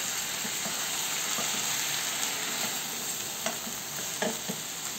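Vegetables sizzling steadily in hot oil in a wok as a wooden spatula stirs and tosses them, with a few light knocks of the spatula against the pan in the second half.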